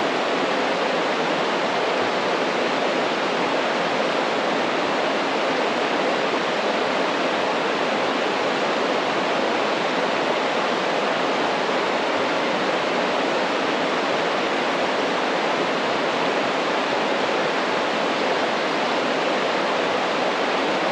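Water rushing steadily over a small river waterfall, an even, unbroken wash of sound.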